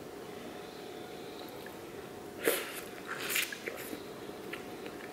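Eating noises as a person works through corn on the cob from a seafood boil: one short, sharp, noisy mouth sound about halfway through, then a few smaller ones and little clicks, over a faint steady hum.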